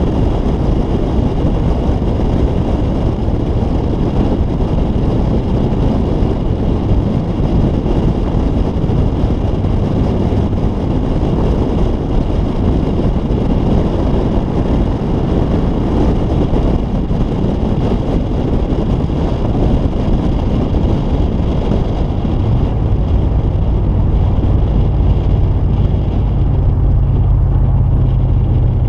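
Steady rush of wind and road noise from a Toyota Tundra pickup driving, with the wind blowing across a roof-mounted microphone. A low steady hum joins in about three-quarters of the way through.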